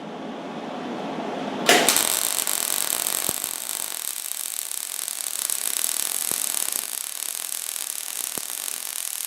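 Millermatic 90 wire-feed welder arc striking about two seconds in and then running as a steady crackling sizzle while a patch is welded onto a snowblower impeller housing.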